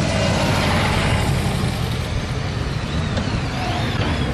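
Motorcycle engines passing close by in a procession, loudest about a second in, with a steady low engine rumble from more vehicles following.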